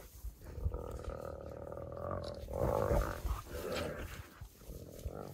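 Spotted hyena and African wild dogs calling at a contested impala kill. A drawn-out rasping call starts about half a second in and lasts nearly two seconds, then shorter, louder, harsher calls follow.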